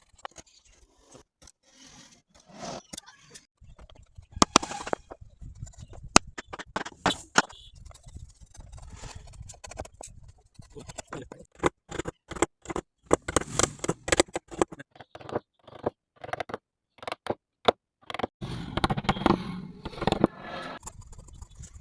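Hand tools working wood: irregular sharp knocks and clicks mixed with scraping, with a longer stretch of scraping about two seconds from around eighteen seconds in.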